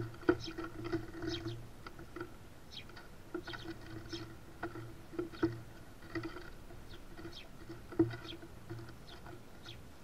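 House sparrows pecking and cracking sunflower seeds on a wooden platform feeder: irregular sharp taps and clicks of beaks and shells, with a low hum coming and going underneath.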